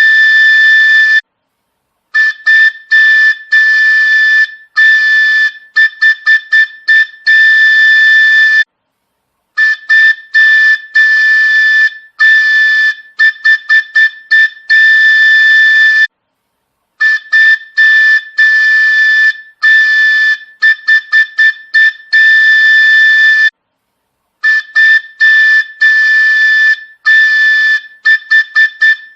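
A high-pitched whistle sounding one steady note, blown in runs of quick short toots broken by longer blasts. The pattern repeats with a short pause about every seven and a half seconds, as a looped effect.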